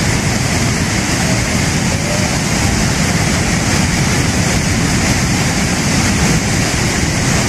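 Muddy floodwater rushing past in a violent torrent, a loud, steady rush of water noise.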